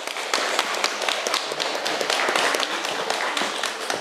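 Audience applauding: a small crowd clapping steadily, dying away just after.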